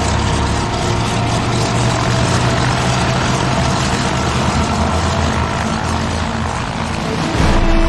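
Twin radial piston engines of a C-47 Skytrain transport running, a dense, steady propeller drone with a strong low hum. It gets louder near the end, as a steady tone joins.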